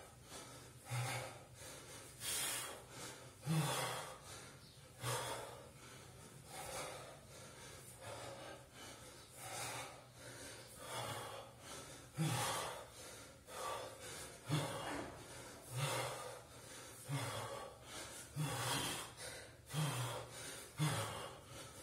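A man breathing hard from exertion during a set of one-arm kettlebell cleans with a 24 kg bell: loud, rhythmic breaths about every one and a half seconds.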